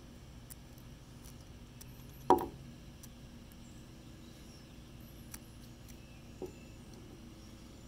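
Handling of a 3D-printed plastic spinner during disassembly: one sharp plastic clack about two seconds in, as a white end cap is set down on a wooden table, and a softer knock near the end.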